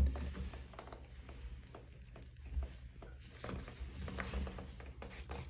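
Scattered light clicks and scrapes of a Pfister shower valve cartridge being handled and fitted into the valve body, over a low steady hum.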